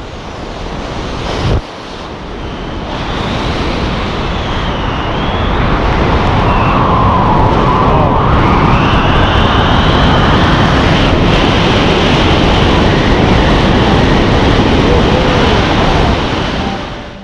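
Wind rushing over a wrist-mounted camera's microphone during a tandem parachute descent under canopy, building over the first few seconds and then holding steady, with a faint wavering whistle. It drops away near the end.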